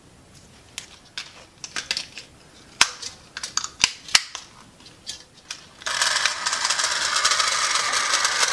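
Clicks and knocks of AA batteries being fitted into a 1970s radio-controlled toy car. About six seconds in, the car's small electric drive motor starts and runs steadily, unloaded, with the car held upside down off the bench.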